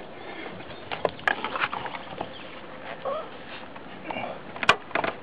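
Scattered light wooden clicks and knocks as the boards of a wooden top bar hive are handled and opened, a small cluster about a second in and a sharp click near the end.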